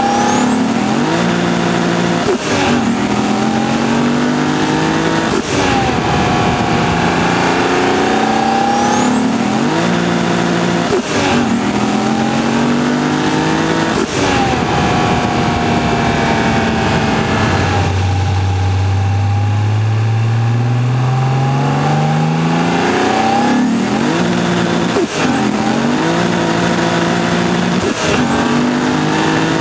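Turbocharged Lexus IS300 2JZ-GE inline-six, heard from the engine bay near its BorgWarner EFR turbo, accelerating hard through the gears. The engine note climbs in each gear and is cut by a short sharp noise at each shift. A high turbo whine rises and then holds steady under boost. Near the middle comes a lull, where the engine pulls up slowly from low revs without the whine.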